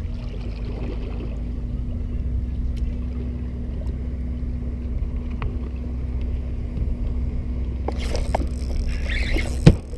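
Low steady rumble of wind and water around a small boat, with a faint steady hum. Near the end come rod and reel handling noises and one sharp knock as a striped bass hits and the angler sweeps the rod up.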